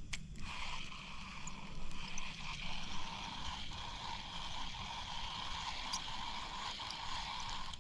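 Steady hiss of flowing water, with a few faint ticks.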